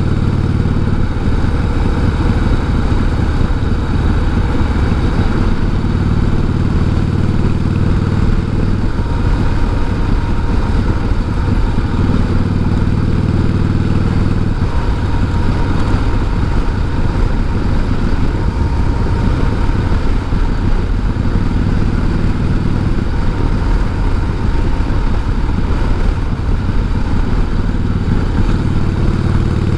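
1988 Harley-Davidson Heritage Softail's V-twin engine running under way with a sidecar attached, a loud, steady engine note whose pitch shifts a few times.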